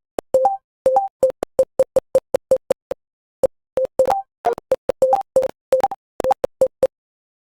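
Typing-practice program's keystroke sound effects: a short electronic beep for each key press, coming fast and unevenly at about five a second, some beeps with a second, higher tone on top.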